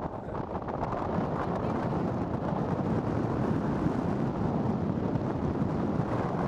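Wind buffeting the microphone over the steady rumble of a vehicle driving slowly along a street.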